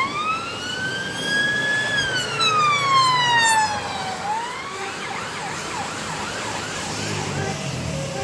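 Police car siren on a slow wail, rising for about two seconds and then falling for two as the car passes close by. It then changes to fainter, quick repeated sweeps, with the car's engine and road noise underneath.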